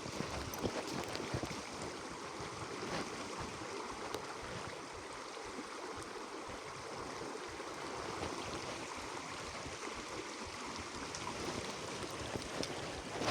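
Small stream flowing steadily over rocks, a continuous even rush of water.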